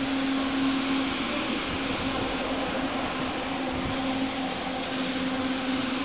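Toshiba electric multiple-unit train pulling out and rolling past at low speed: a steady noise of wheels and running gear, with a steady low hum under it.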